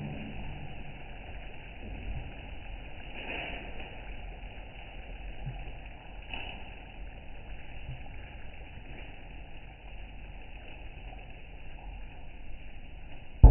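Pot of dal boiling on the stove: a steady bubbling hiss.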